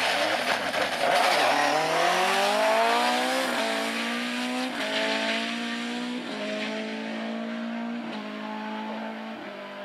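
Rally car accelerating hard away through the gears. After a rush of tyre and engine noise as it pulls away, the engine note climbs and drops back at about five upshifts roughly every second and a half, fading as the car recedes.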